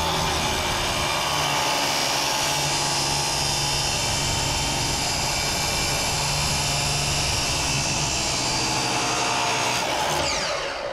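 A power tool running steadily and loudly, with several pitches falling near the end as it winds down.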